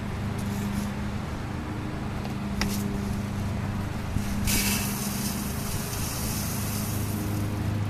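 Dry cereal poured from a plastic bag into a large pot, a rattling hiss that starts about halfway through and runs for about three seconds. Under it is a steady low hum.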